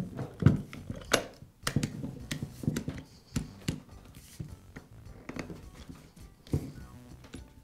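Handling clicks and knocks as a polisher's metal gear head is fitted back onto its plastic motor housing and turned to align it, with the louder knocks in the first second or so.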